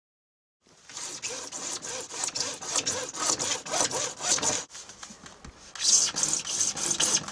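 Hand saw cutting out a section of a downpipe for the diverter, in quick back-and-forth strokes. It starts about a second in, stops for about a second past the halfway point, then saws on.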